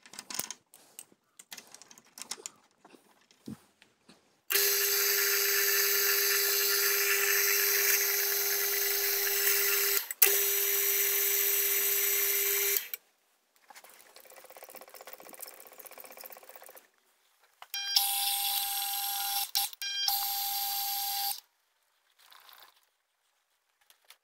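Mill-drill running with a steady whine in two spells, about eight seconds and then about three seconds with a higher tone, while a tap cuts threads in a steel wheel hub. Light handling clicks come first, as the tool is changed by hand.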